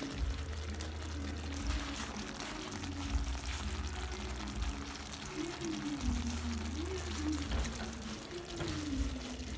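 Liquid pouring and trickling, faint and unbroken: a soupy chicken gizzard stew being served.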